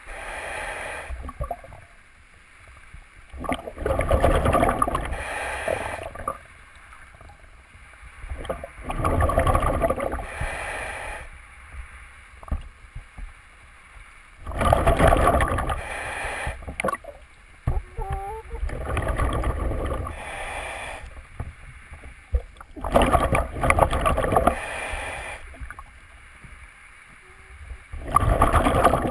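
Scuba diver breathing through a regulator underwater: a burst of bubbling exhaled air about every five seconds, with quieter stretches between breaths.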